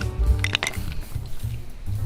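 Background music with a steady drum beat and bass, with a few sharp clicks about half a second in.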